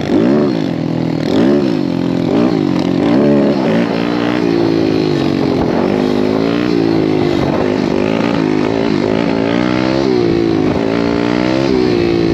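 A 190cc pit bike's engine revs hard. Its pitch climbs and drops about once a second at first, then runs more steadily with a long climb near the end as the bike comes up into a wheelie.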